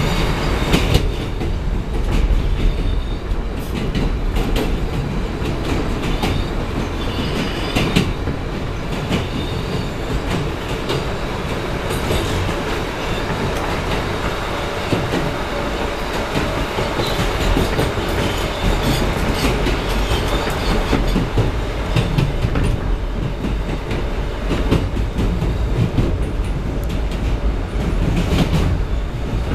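Inside an R160B Siemens subway car running along the track: a steady low rumble of wheels on rail with irregular clicks from rail joints, and a faint thin squeal from the wheels at times.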